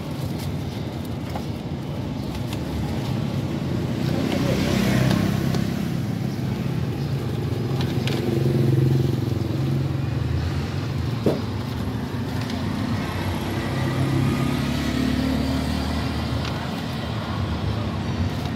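Street traffic: motor vehicles passing on a city road, a low engine hum that swells and fades several times, with a single sharp click about eleven seconds in.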